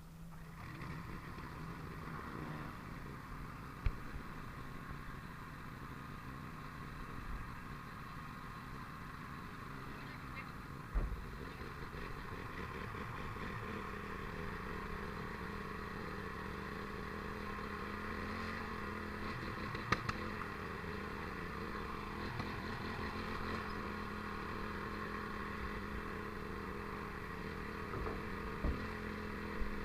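Fire brigade vehicle's engine running steadily as it drives along a road, under an even road-noise hum, with a few brief knocks.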